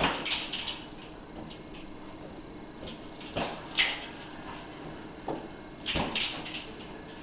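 A border collie leaping at a floating balloon, its jumps, landings and hits on the balloon making short bursts of scuffling thumps, three times.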